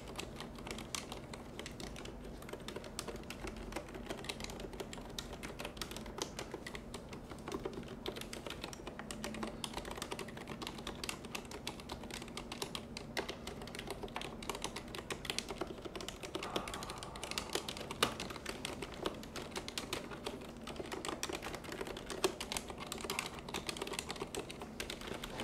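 Tochef full-size mechanical keyboard with silent red (low-noise linear) switches, typed on softly and continuously: a steady, rapid stream of muted key clacks.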